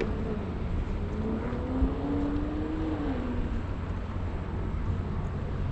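A passing engine hum whose pitch rises slightly, holds, then drops away about three seconds in, over a steady low rumble.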